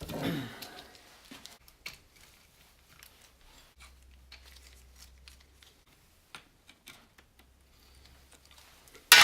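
Scattered light clicks and taps of hand tools on a BMW R80 airhead engine while the oil filter is being got out, with one sharp loud clack near the end.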